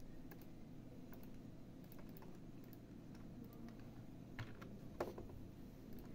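Scattered clicks of a computer keyboard and mouse while drawing in a design program, a few light taps with two sharper clicks near the end, over a low room hum.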